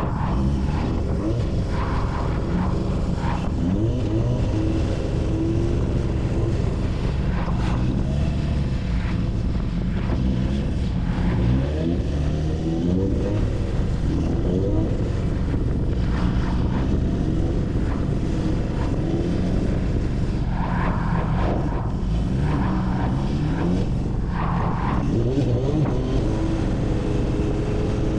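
Honda CB750 K0's air-cooled inline-four through a Delkevic stainless 4-into-1 exhaust with a megaphone silencer, heard from the moving bike. The exhaust note rises and falls repeatedly as the rider accelerates, over a steady rush of wind.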